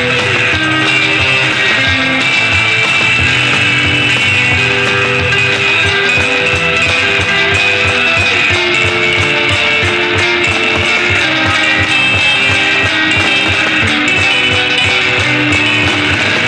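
Instrumental surf rock: an electric guitar plays a melody of held notes over a steady beat.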